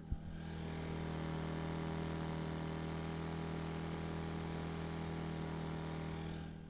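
Westinghouse WH2200iXLT digital inverter generator, a small single-cylinder four-stroke, running steadily with an even low hum. The sound fades out near the end.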